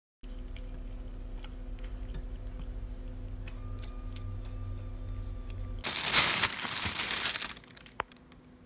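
A Siamese cat eating dried food pieces from a bowl, faint crunching clicks over a steady low hum. About six seconds in, a plastic bag crinkles loudly for about a second and a half, then one click.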